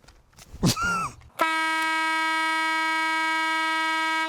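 A single sustained air horn blast, held at one steady pitch for about three seconds before cutting off. It is loud enough to read about 112.5 decibels on a sound meter.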